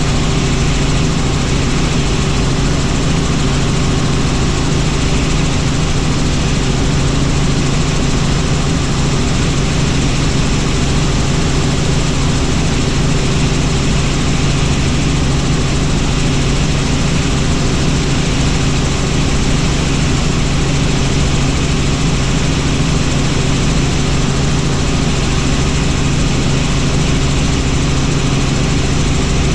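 Helicopter in steady flight: loud, unchanging rotor and engine noise with a strong low hum.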